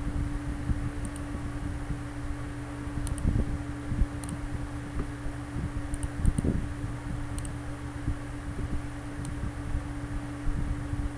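Steady whir of a computer fan with a low hum, and a few faint clicks scattered through it.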